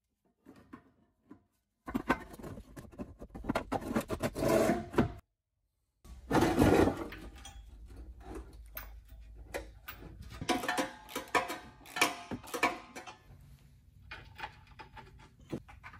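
Scraping, rubbing and clunking of a steel tow bar bracket being worked around the exhaust under a car, mixed with cloth rustling close by. Irregular handling noise with sharp knocks, loudest in the first half, cut off abruptly for a moment about five seconds in.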